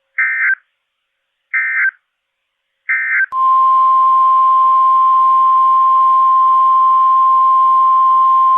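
Three short bursts of screeching SAME digital header tones about a second and a half apart mark the start of an Emergency Alert System message. About three seconds in, the steady, unwavering NOAA Weather Radio warning alarm tone begins and is still sounding at the end.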